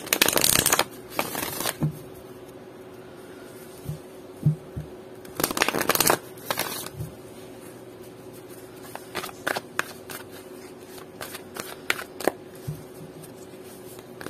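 Deck of oracle cards shuffled by hand: two loud bursts of fast card riffling, one at the start and one about five and a half seconds in, followed by scattered light clicks and taps of the cards.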